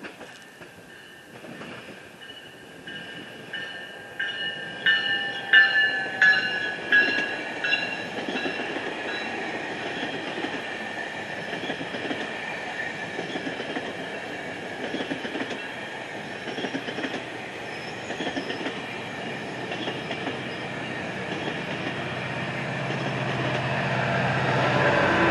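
GO Transit bilevel commuter train passing: steel wheels clicking over rail joints with a high wheel squeal as the first coaches go by, then a steady rumble of passing coaches. Near the end the diesel locomotive pushing at the rear grows louder.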